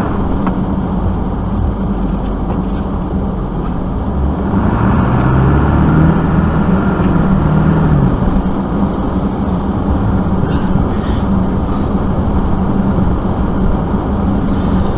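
Vehicle engine running steadily, then revving up about four and a half seconds in, holding the higher pitch for a few seconds and dropping back.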